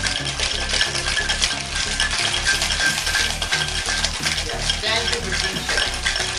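Ice rattling inside a cocktail shaker held in a continuous hard shake, with rapid, dense clattering throughout. The shaker holds a rum and fruit-juice mix being chilled over large ice cubes.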